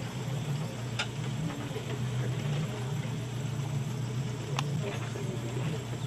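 Tour boat's engine idling with a steady low hum, and two faint clicks over it.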